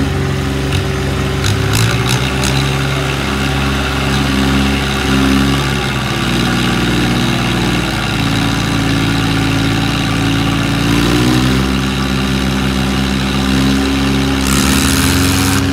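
Diesel tractor engines of a Mahindra 575 and a Swaraj 744 running hard under heavy load, pulling against each other in a tractor tug-of-war. The engine note shifts in pitch several times and climbs about eleven seconds in, with a brief hiss near the end.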